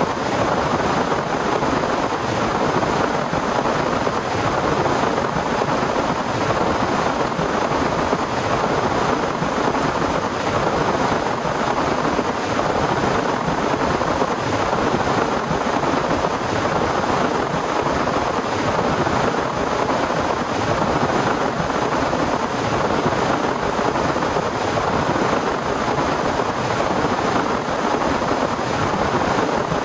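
Heavy rain falling steadily, a dense unbroken hiss with no breaks or single drops standing out.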